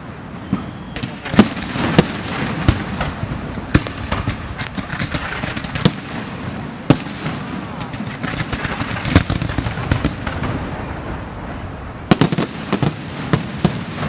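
Large aerial fireworks display: shells bursting in sharp bangs at irregular intervals, with many smaller pops and crackles in between and a quick cluster of bangs about twelve seconds in.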